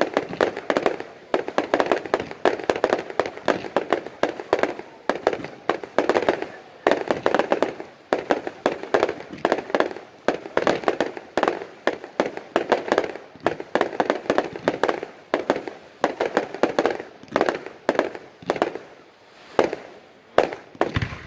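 Fireworks display: a rapid, unbroken barrage of shell bursts, several bangs a second, with crackling between them.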